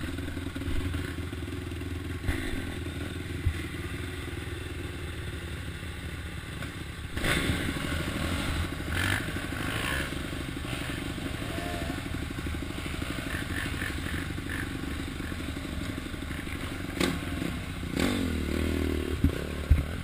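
Off-road motorcycle engine running at low revs, growing louder about seven seconds in as the bike moves off along the trail. There are a few knocks and clattering sounds near the end.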